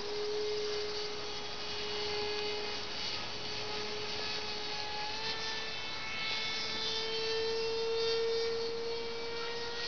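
Radio-controlled model airplane's engine droning steadily overhead in flight. The buzzing tone drifts a little higher and lower as the plane flies.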